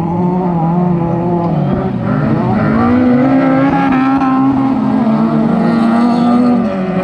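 Autocross cars' engines revving hard through a dirt corner, several at once, with the pitch dipping about two seconds in and climbing again as the throttle opens.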